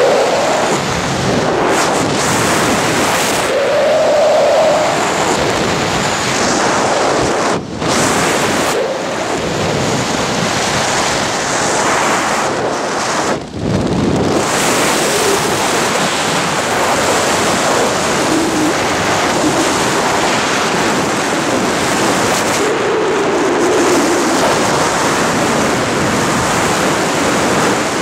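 Wind rushing over the microphone during a parachute descent: a loud, steady rush of noise with two brief dips, about eight and thirteen seconds in.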